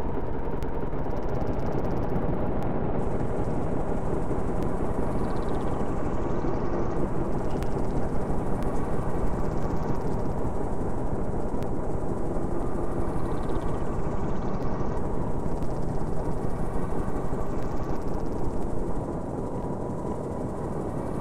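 Dense, steady rumbling noise drone of an experimental noise soundtrack. It pulses rapidly from about eight seconds in and drops a little in level near the end.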